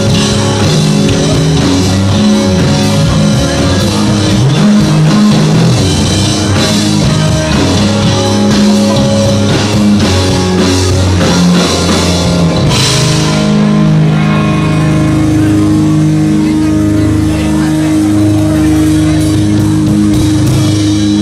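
Live rock band playing loud, with electric guitars and a drum kit. About 13 seconds in there is a bright crash, after which the band holds sustained chords and the drumming thins out.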